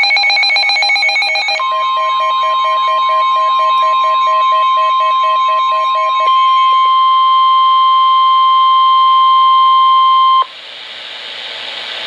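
NOAA Weather Radio warning alarm: a steady 1050 Hz tone lasting about nine seconds, announcing a severe thunderstorm warning, sounding through Midland weather alert radios. Over it the radios' own rapid electronic alarm beeping runs until about six seconds in, when a second, higher steady tone takes over; everything cuts off sharply near the end, leaving faint hiss.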